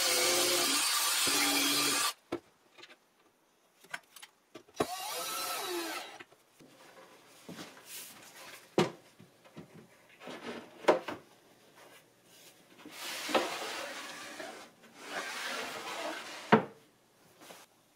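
A cordless drill-driver runs for about two seconds driving a screw, then runs again briefly about five seconds in. After that, a board top is swung around on its pivot, sliding and rubbing in several stretches, with a few sharp knocks.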